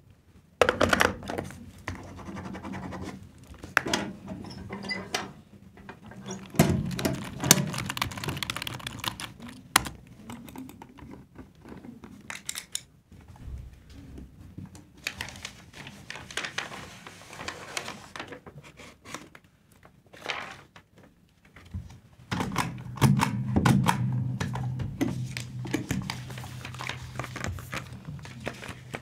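A string of office sounds: keyboard typing and clicking, knocks and thunks, and scratching or tearing of paper. A little over three-quarters of the way in, a machine starts running with a steady low hum under more clicks.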